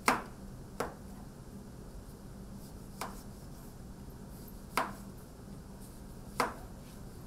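Kitchen knife slicing through a honeydew melon into wedges, the blade knocking on a plastic cutting board five times at uneven gaps of one to two seconds. The first knock is the sharpest.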